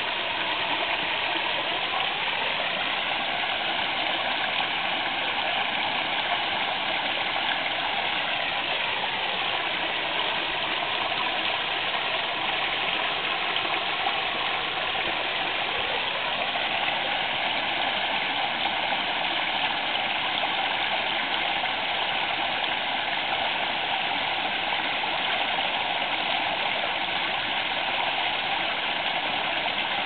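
Waterfall: a steady, unbroken rush of falling water, its tone shifting slowly up and down now and then.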